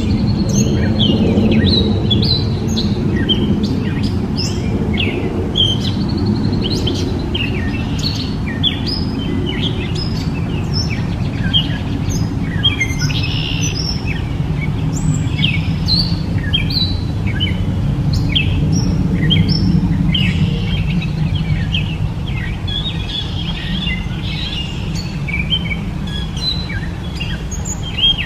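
Gray catbird singing: a long, unbroken run of short, varied chirps and squeaky notes, with a steady low rumble of background noise underneath.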